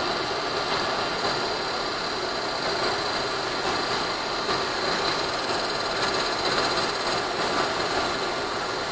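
Steady whir of a cooling fan: an even hiss with a faint high-pitched whine, unchanging throughout.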